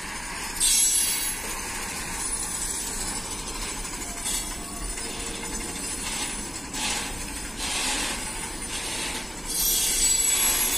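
Container freight train's flatcars rolling past, their steel wheels running on the rails with a steady rumble and irregular louder surges of hiss every second or two.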